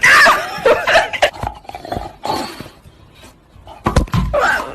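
A dog crying out in a loud burst of gliding yelps and whines at the start, quieter for a couple of seconds, then calling again about four seconds in.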